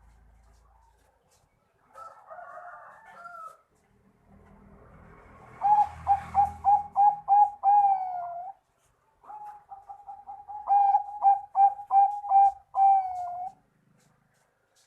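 Zebra dove (Bangkok-strain perkutut) singing: two song phrases, each a quick run of short staccato coos ending in a longer drawn-out note. A softer, quieter warbling call comes about two seconds in.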